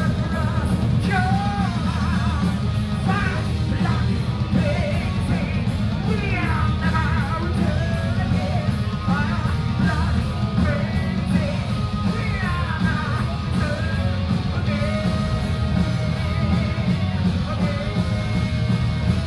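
Live power metal band playing: a male singer's voice over distorted electric guitars, bass and drums, with a steady cymbal beat.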